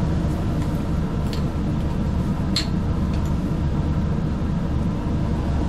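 Steady low hum of a laboratory fume hood's ventilation fan running, with two faint light clicks from handling the sample tube and forceps.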